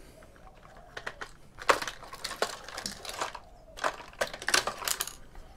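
Irregular clicks and rattles of hard plastic parts as a robotic vacuum cleaner's chassis is pulled apart by hand, starting about a second and a half in.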